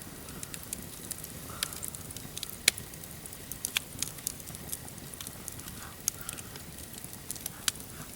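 Wood campfire crackling: irregular sharp pops and snaps over a faint steady background, with one louder pop about two and a half seconds in.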